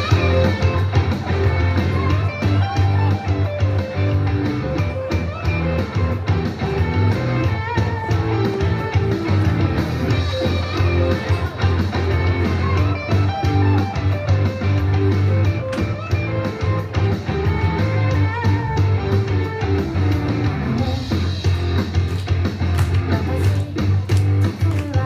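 Loud rock-style song with guitar and a strong, steady bass line.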